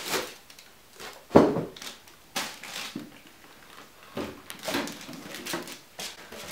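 A plastic-wrapped RTEC MIG 180 welding machine is set down on a concrete floor with one sharp thump about a second and a half in. Plastic wrap then rustles, and cardboard and foam packing scrape as the box is handled.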